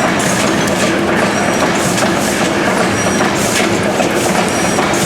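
A large Snow twin-tandem, double-acting natural-gas engine and compressor running steadily. It makes a loud mechanical clatter, with a hissing surge about every three-quarters of a second and a short high squeak about every second and a half.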